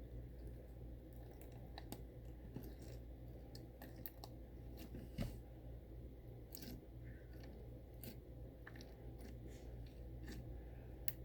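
Slime being squished and handled by hand: faint, scattered small clicks and crackles, with one dull knock about five seconds in.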